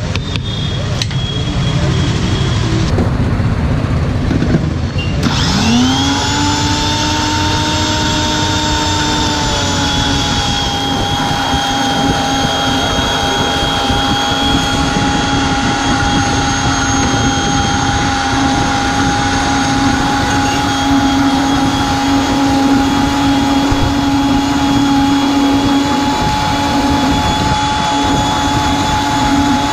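Electric blender motor spinning up about five seconds in, its whine rising quickly in pitch, then running steadily as it blends pomegranate seeds into juice. Before it starts there is handling clatter.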